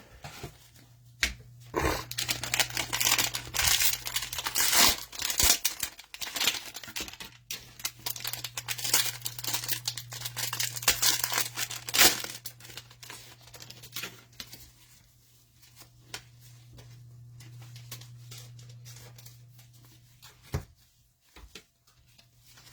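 Cellophane wrapper of a trading-card cello pack being torn open and crinkled, in irregular bursts of rustling for about twelve seconds, then quieter handling sounds over a low steady hum.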